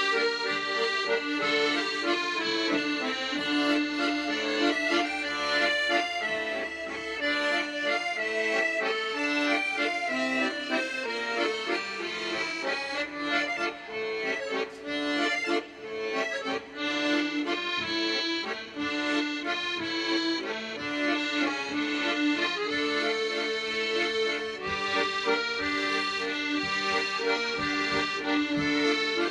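Accordion ensemble playing a tune: several accordions holding sustained chords under a moving melody, with a choppier passage of short, detached notes in the middle.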